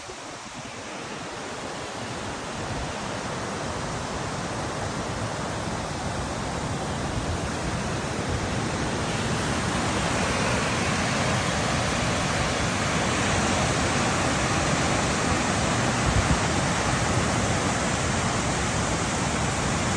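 Waterfall: steady rush of falling water that grows gradually louder over the first half, then holds even.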